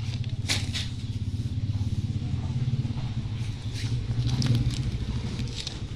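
An engine running steadily with a low, rapidly pulsing rumble, swelling slightly a few seconds in. Two light clicks come about half a second in.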